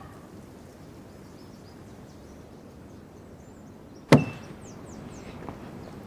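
Quiet outdoor background with a few faint high chirps, then a single sharp knock about four seconds in, followed by a short ringing tone.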